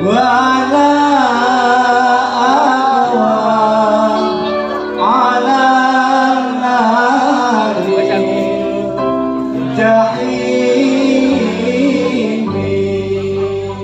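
Music: a vocalist singing a devotional song in long, ornamented sliding phrases, over a steady instrumental ensemble accompaniment. There are brief pauses between phrases at about four and a half and eight seconds in.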